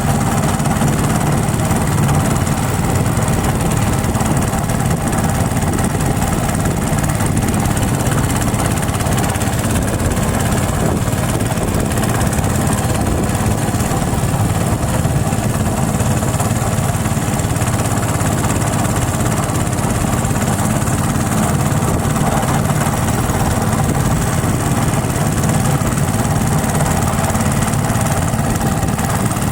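A small engine running steadily at a constant speed, with an even hiss over it.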